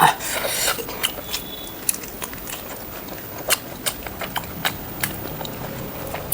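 Close-miked eating: a crunchy bite in the first second, then scattered sharp, wet clicks of chewing.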